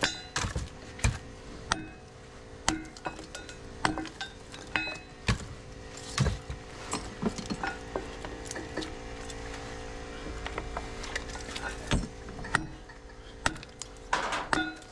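Irregular knocks, cracks and metal clinks from breaking apart scrap transformers for their copper, over a steady machine hum.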